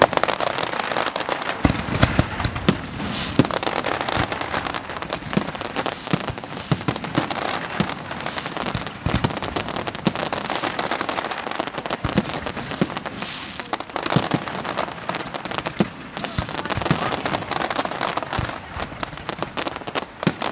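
Large fireworks display: a dense, continuous crackle of many small bursts, with louder bangs scattered through it.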